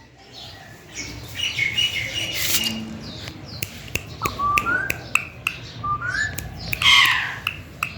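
Pet green parrot making short gliding chirps and squawks, with scattered sharp clicks and one louder harsh squawk near the end.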